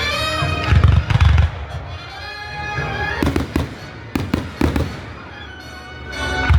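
Fireworks bursting over music. There are deep booms about a second in, then a run of sharp bangs between about three and five seconds, and one more bang near the end.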